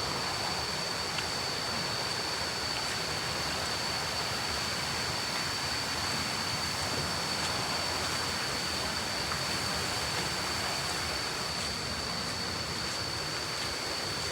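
Steady rush of a waterfall, with a steady high-pitched whine over it.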